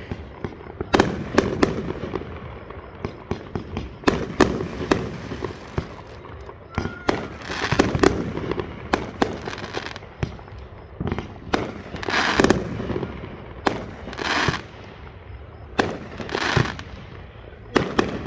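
Aerial fireworks shells going off in a string of sharp bangs, some in quick clusters, with several longer rushing, crackling swells between them.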